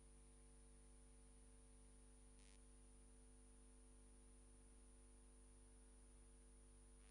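Near silence: a faint steady electrical hum, with a brief faint hiss about two and a half seconds in.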